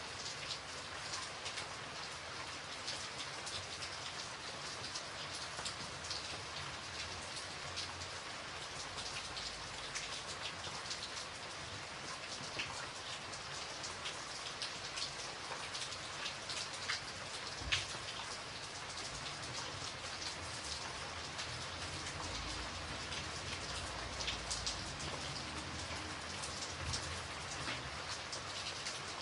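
Steady rainfall, a constant hiss with many individual drops ticking sharply on a surface throughout, and one louder drop a little past halfway.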